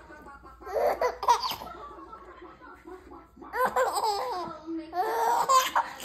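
Infant under five months old laughing in three bursts while being tickled on the tummy.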